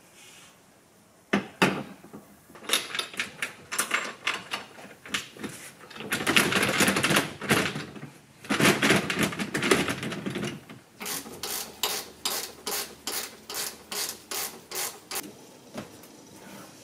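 Socket ratchet wrench clicking as the bolts holding a boat seat to its swivel base are run in: irregular runs of clicks, two longer stretches of fast rattling in the middle, then a steady run of clicks about three a second that stops shortly before the end.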